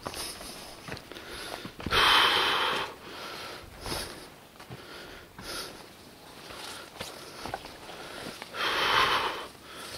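Heavy breathing of a hiker climbing a steep mountain trail, close to the microphone, with two loud exhales, one about two seconds in and one near the end: out of breath from the climb.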